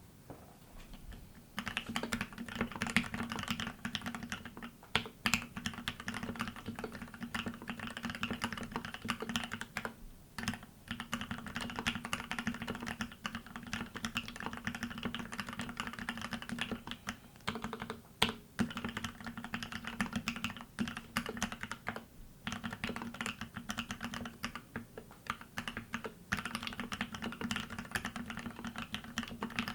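Continuous fast typing on a TX108 SE mechanical keyboard with Gateron Ink Black linear switches on a brass plate, lubed with Krytox 105 and TX oil, under EnjoyPBT PBT keycaps. The keystrokes begin about a second and a half in and run on with a few brief pauses.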